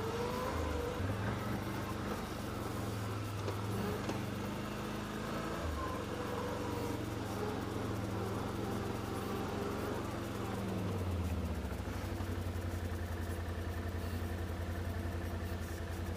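2013 Can-Am Outlander 500 XT ATV's V-twin engine running along a trail, its pitch shifting with the throttle, then dropping to a steady idle about eleven seconds in.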